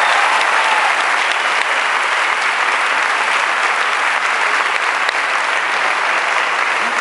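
Audience applause, dense and steady, easing off slightly toward the end.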